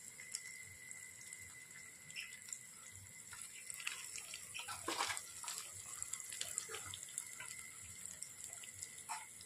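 Spice masala frying in oil in a kadhai: faint sizzling and crackling with scattered small pops, and one louder click about five seconds in.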